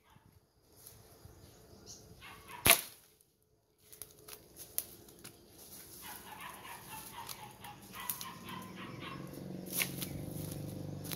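Brush being cleared with a machete: one sharp chop a few seconds in, then scattered light snaps and rustling of cut branches being gathered. Near the end a low engine hum grows louder underneath.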